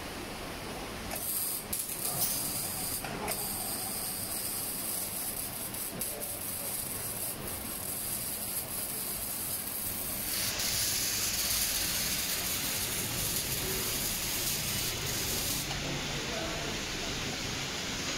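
Arc welding on an exhaust pipe joint: a steady hiss with a few sharp clicks, starting about a second in, growing louder and fuller about ten seconds in, and cutting off a couple of seconds before the end.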